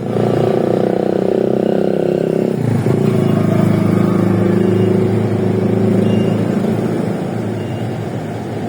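Engine and road noise of the vehicle being driven, a steady drone whose pitch shifts about two and a half seconds in. There is no creaking or rattling from the vehicle.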